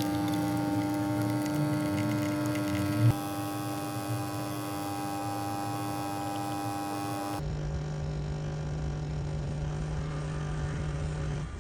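Mijia capsule coffee machine's pump humming steadily, with a sharp click about three seconds in. A little past halfway the hum gives way to a lower, quieter steady tone, which stops near the end.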